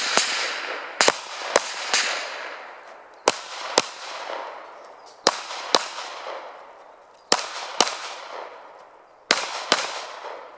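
Pistol shots fired in quick double taps, pairs about half a second apart with a new pair every two seconds or so, a few in threes, each shot trailing off in a ringing echo.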